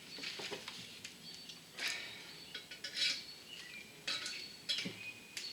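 Light metallic clinks and taps of a hand tool and small steel valve-train parts against a cylinder head while valve springs, retainers and keepers are fitted with a spring compressor, several separate clinks, some with a short high ring.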